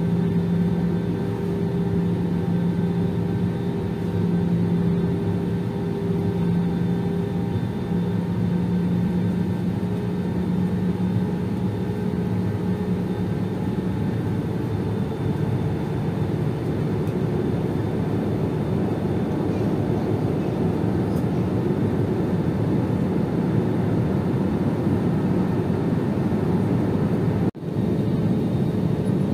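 Airliner cabin noise in flight: a steady rush of engine and airflow with a low hum, broken off briefly near the end.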